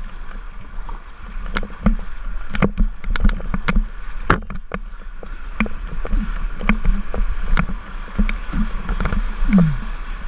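River rapids rushing around a whitewater kayak as it is paddled down through the white water, with paddle strokes and frequent sharp splashes and knocks against the boat and camera. A short falling groan sounds near the end.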